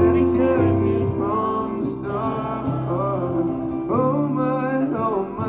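Live acoustic song: acoustic guitar playing under a sung melody that slides between held notes, with no clear words.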